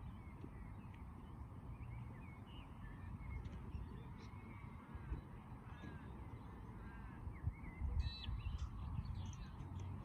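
Birds calling with many short chirps throughout, and a louder, harsher call about eight seconds in, over a steady low rumble.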